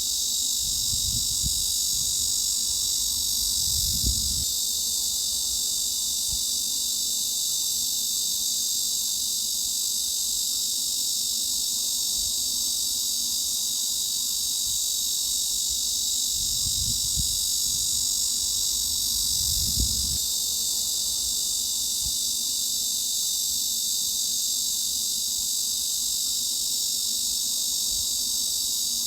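Cicadas buzzing in a steady, unbroken high-pitched drone. A faint low rumble comes in twice, about a second in and again about seventeen seconds in.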